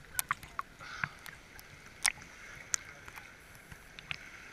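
Sea water lapping and splashing at the surface right against the camera, a string of irregular sharp little splashes over a faint hiss.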